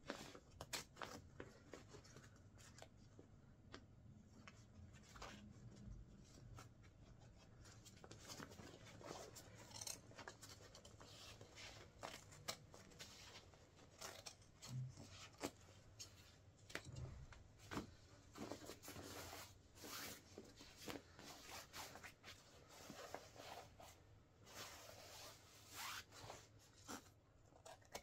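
Scissors cutting into the fabric of a Wellensteyn Schneezauber winter jacket: a run of irregular, quiet snips and fabric rustles, coming thicker in the second half.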